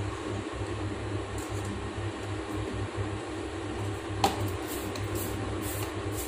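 Steady low mechanical room hum, with one sharp click of a metal spoon about four seconds in and a few faint small knocks after it.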